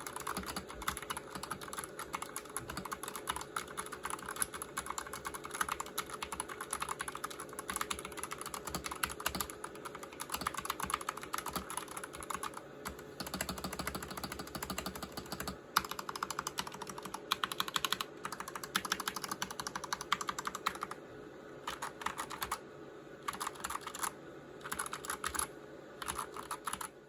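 Fast typing on a Gamakay 65% mechanical keyboard with pudding keycaps, a dense run of key clicks that turns into shorter bursts with brief pauses in the last several seconds.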